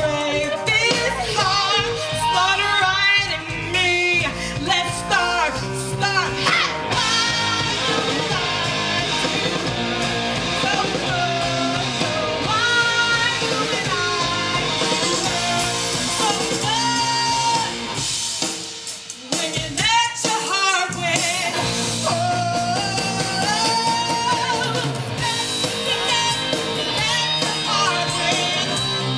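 Live band playing through a stage PA: sung vocals over electric guitar, drums and keyboard, with a brief drop in loudness about two-thirds of the way through.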